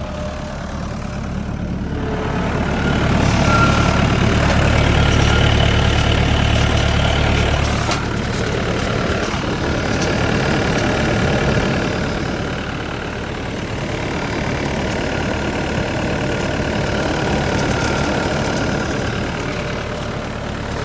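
Tracked skid steer's engine running steadily. About two seconds in it gets louder and heavier for several seconds, as the loader arms are raised, then settles back to a steady run.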